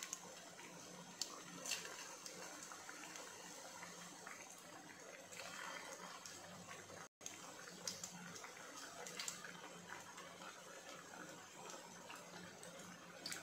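Hot oil sizzling as dhokla cutlets deep-fry in a frying pan, a steady hiss with occasional sharp pops. The sound cuts out for an instant about halfway through.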